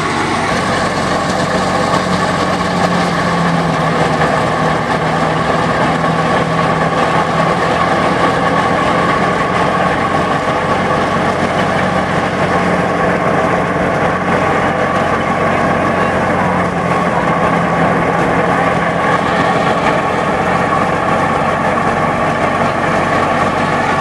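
Tractor-powered wheat thresher running steadily while threshing, its drum and fan driven by the tractor's engine: a loud, even mechanical drone.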